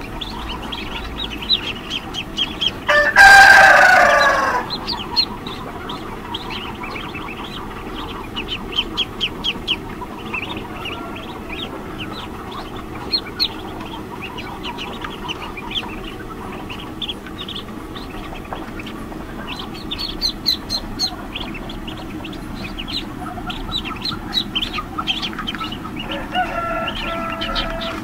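Newly hatched ducklings peeping: many short, high chirps. A rooster crows loudly about three seconds in, and another pitched bird call comes near the end.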